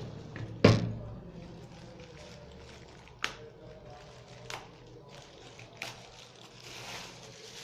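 Hands handling cable and small tools on a work surface: a sharp knock as something is set down, then three light clicks and a brief rustle.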